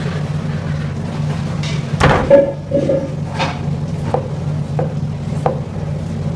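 Several sharp knocks at uneven intervals, the loudest about two seconds in, over a steady low hum.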